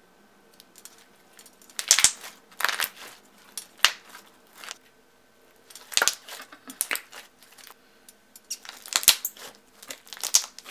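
Thick clear slime with small beads squeezed and pressed between the hands, giving sharp wet pops and crackles in clusters a second or two apart, starting about a second and a half in.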